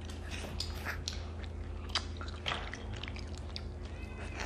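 Close-up eating sounds of boiled crawfish: chewing, sucking and small crackles of shell, with a couple of sharper clicks about two seconds in.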